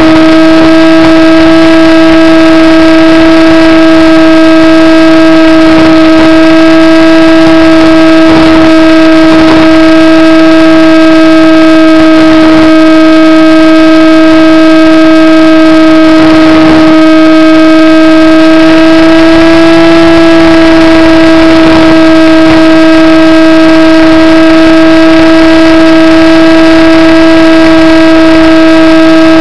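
Model airplane's motor and propeller running at steady throttle, heard loud from the onboard camera as one constant whining tone that rises slightly in pitch about twenty seconds in, with a few short rushing sounds along the way.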